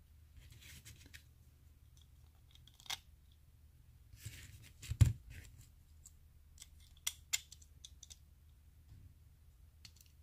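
Toy diecast truck body and base being handled and fitted together by hand: light clicks and scrapes of small metal and plastic parts, with a dull thump about five seconds in.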